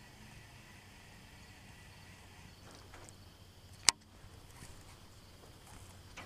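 Quiet, steady open-air background, broken about four seconds in by one sharp click from a baitcasting rod and reel during a cast.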